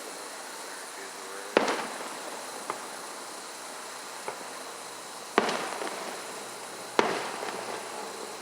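Firework shells bursting in a fireworks display: three loud bangs, about one and a half, five and a half and seven seconds in, each trailing off in a rolling echo, with two fainter pops between them.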